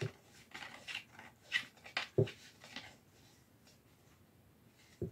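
Knocks, clicks and scrapes of metal shelf tubes and plastic fittings being handled and screwed together, about half a dozen in the first three seconds and one more at the end.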